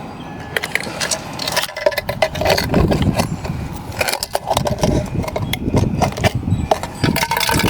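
Empty aerosol spray can being cut and pried open with hand tools: repeated metal clicks, scrapes and clinks of thin can steel, over a low rumble.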